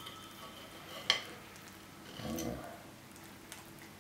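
Quiet kitchen handling, with one sharp click of cutlery or crockery about a second in and a short, low, muffled sound a little after two seconds.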